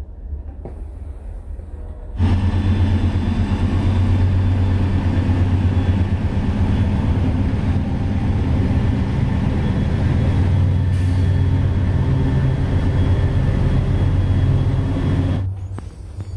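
Small electric air pump running steadily with a low hum, inflating an air mattress; it switches on about two seconds in and cuts off shortly before the end.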